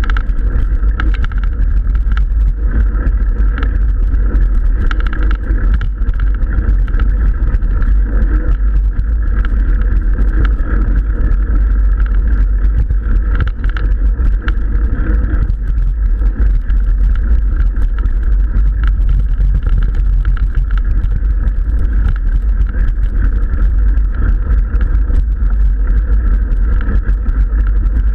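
Loud, steady wind rumble on the microphone of a camera riding on a mountain bike, with the tyres rolling over a dirt track.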